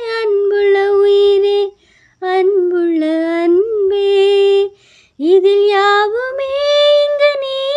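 A young woman singing a Tamil song unaccompanied, in three long held phrases with short breaks for breath about two seconds and five seconds in.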